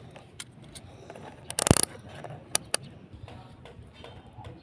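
A short rattling clatter about a second and a half in, then two sharp clicks, over faint scattered ticking: small hard objects being handled.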